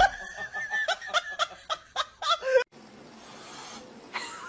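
A person snickering and laughing in short repeated bursts, cut off abruptly about two and a half seconds in; a steady faint hiss follows.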